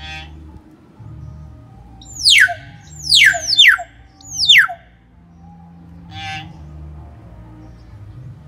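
Young hill myna giving four loud, sharp whistles in quick succession, each falling steeply in pitch, about two seconds in. A few shorter calls come before and after.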